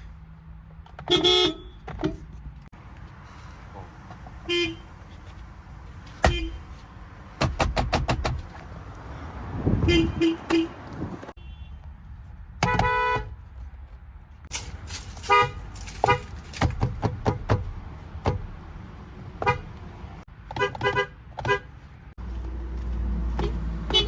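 Horns of many different cars honked one after another, each car with its own pitch: single blasts of up to about a second and runs of quick short taps. A low steady rumble comes in near the end.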